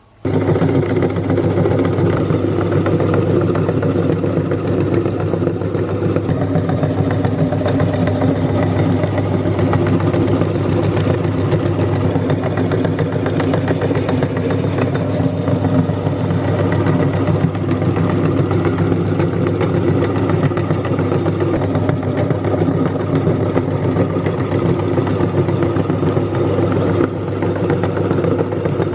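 Electric meat grinder switched on, its motor running with a loud, steady hum.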